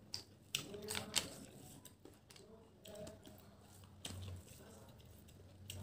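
Fingers mixing rice with food on a plate: soft squishing with a cluster of sharp little clicks in the first second or so and a few more later.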